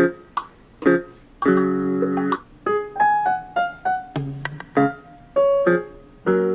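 Background music: a piano playing chords and a melody of short single notes.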